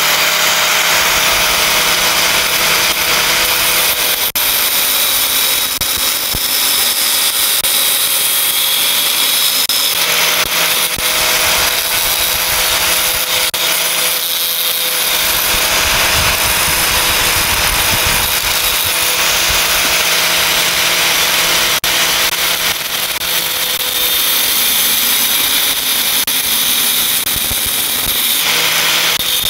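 Electric angle grinder running continuously at full speed, its disc grinding a small piece of sheet steel, with a steady motor whine under the harsh grinding noise.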